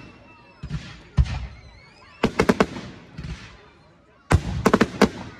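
Fireworks display: aerial shells going off with two low booms about a second in, then two volleys of rapid sharp cracks about two seconds apart, with faint rising whistles between.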